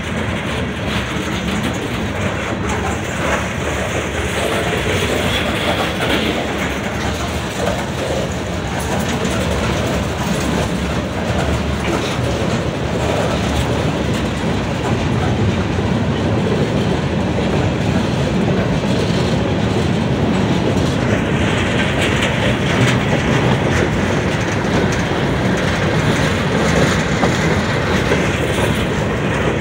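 CSX freight train's covered hoppers and open coal cars rolling steadily past on the near track, wheels running on the rails, growing somewhat louder in the second half.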